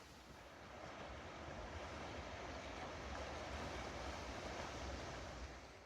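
A gust of wind rising and falling, building about a second in and dying away near the end.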